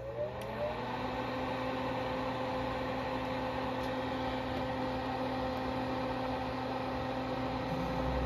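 Pioneer M-V2000 power amplifier just after power-on: its cooling fan spins up, the whir rising in pitch and settling within the first second into a steady whir over a low hum.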